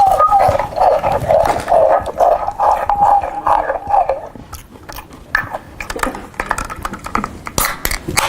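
Loud eating and chewing noises played through a handheld megaphone, tinny and distorted, pulsing about three times a second. About four seconds in the megaphone sound drops away, leaving fainter crunching and clicking.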